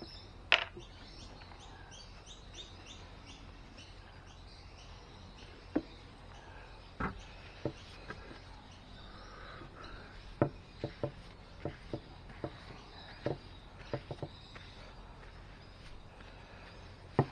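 A bird chirps in a quick series of short, high notes during the first few seconds over a quiet background. Scattered sharp clicks and light knocks of hands handling things on the bench follow through the rest.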